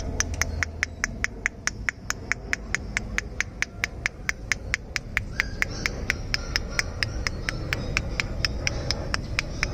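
A rapid, evenly spaced series of sharp clicks, about five a second, with no break, over a low rumble.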